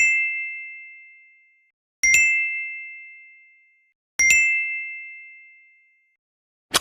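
Chime sound effect: three identical bell-like dings about two seconds apart, each ringing away over about a second and a half, followed near the end by one short sharp click.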